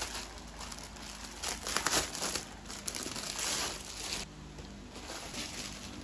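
Clear plastic clothing bag crinkling as folded clothes are handled and pulled out of it, with bursts of rustling that are loudest in the middle and ease off about four seconds in.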